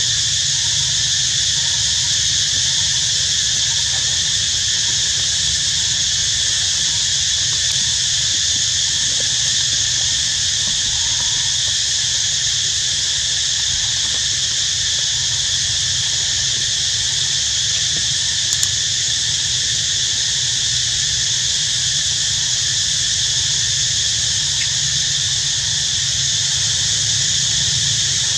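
Steady chorus of insects droning without a break in several high, unchanging bands, over a low steady rumble.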